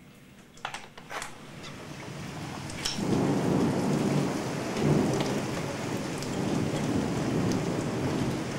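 Thunder from a storm overhead: a deep rumble rolls in about three seconds in, swells to its loudest a couple of seconds later and keeps rumbling over the hiss of torrential rain. A few sharp clicks about a second in.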